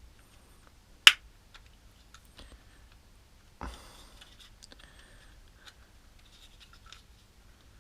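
Small clicks and scratches from a WORKPRO utility knife's plastic and metal body being handled and worked at to open its blade compartment. There is one sharp, loud click about a second in, then a duller knock with a short scrape about three and a half seconds in.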